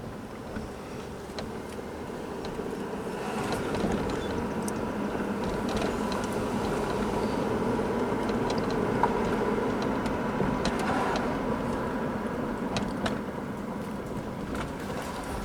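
Hyundai Santa Fe under way, engine and road noise growing louder over the first few seconds as it gathers speed, then holding steady, with a few small clicks.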